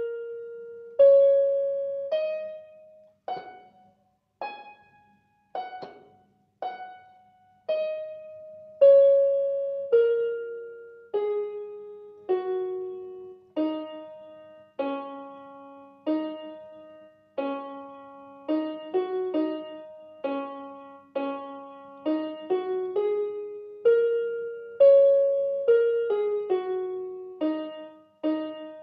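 Background piano music: a slow melody of single struck notes, each fading away, about one a second. From about halfway a lower second part joins and the notes come quicker.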